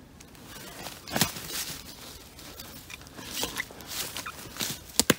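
Footsteps crunching irregularly through dry leaf litter and brush, with a louder crunch about a second in and two sharp clicks in quick succession near the end.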